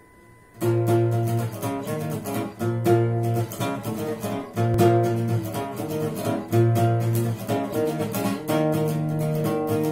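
Steel-string acoustic guitar strummed, starting about half a second in, in a chord pattern that repeats every couple of seconds; near the end the strumming turns steadier and more sustained.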